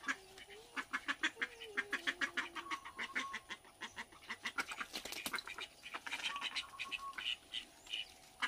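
Ducks quacking in quick, continuous runs of short calls.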